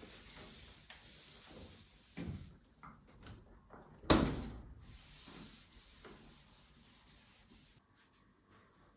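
Kitchen work sounds: soft rubbing and light knocks, with one sharp knock about four seconds in, from a cupboard door or drawer being handled.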